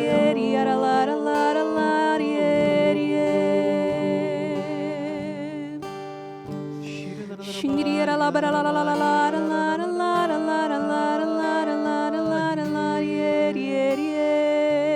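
Slow worship music: a sung melody with vibrato on long held notes over acoustic guitar.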